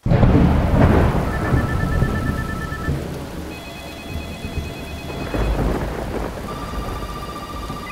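Heavy rain with thunder. A loud clap starts suddenly and rolls off over the first couple of seconds, and a second low rumble comes about five seconds in over the steady downpour.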